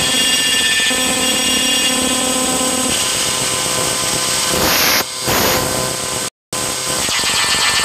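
Black MIDI playback: a MIDI file of millions of notes played through a sampled soundfont, thousands of notes at once blurring into a harsh, noisy wall of sound. The texture shifts about five seconds in, and the sound cuts out completely for a split second just after six seconds.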